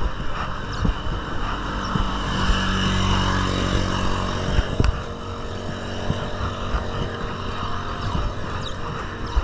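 Wind rushing over the microphone and tyre noise from a road bike rolling along a concrete road, with a few sharp knocks as it rides over the slab joints. An oncoming motorized tricycle's engine grows louder and passes about four seconds in, then fades.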